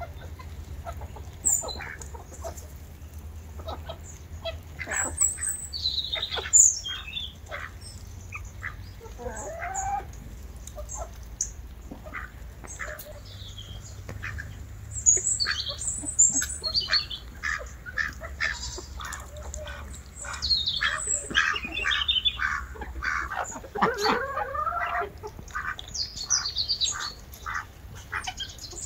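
Chickens clucking and calling in a flock, with many short, high peeps scattered throughout and a few longer, lower calls. A steady low rumble lies underneath.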